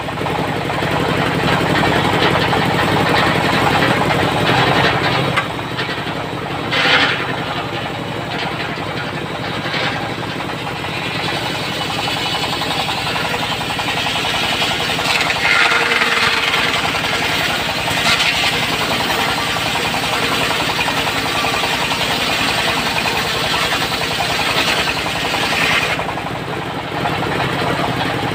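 A single-cylinder diesel engine runs steadily, driving a circular saw blade that rips through teak planks. The cutting noise swells louder and higher at times, around the middle and again near the end.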